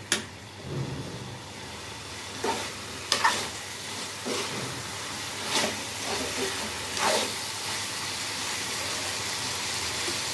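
Eggplant pieces sizzling in a metal kadhai with a little water just added to soften them, the sizzle swelling steadily. A metal spatula scrapes and knocks against the pan about six times as the pieces are stirred.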